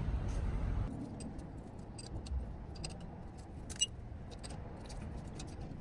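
Faint metallic clicks and ticks as the hex drain plug is put back into the bottom of a TeraFlex 44 front axle housing, with the sharpest click about four seconds in.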